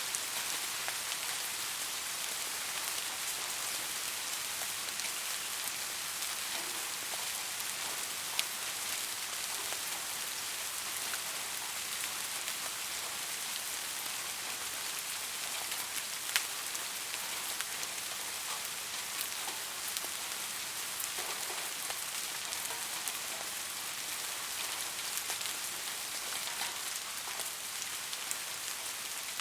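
Steady rain falling on a surface, an even hiss with scattered sharper drop ticks, the clearest about eight and sixteen seconds in.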